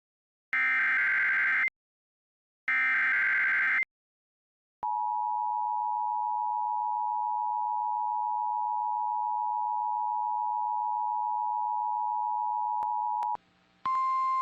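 Emergency Alert System tones. First come two harsh one-second bursts of SAME digital header data, a second apart. Then, about five seconds in, the steady two-tone attention signal sounds for about eight and a half seconds and cuts off, and a short single higher tone begins just before the end.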